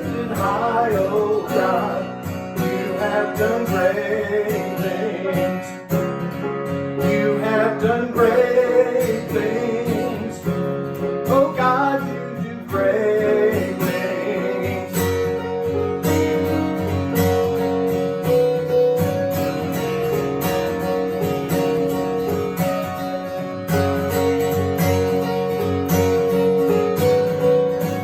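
Contemporary worship song led by strummed acoustic guitar, with a wavering singing voice over it for about the first half, then guitar-led instrumental playing.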